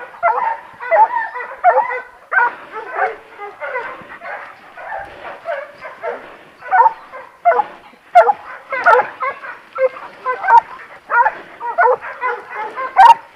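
Hunting dogs barking and yelping over and over, several short excited calls a second without pause.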